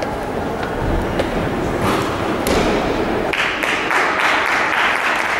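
Audience clapping in a reverberant sports hall, starting about three seconds in, after a few dull thuds.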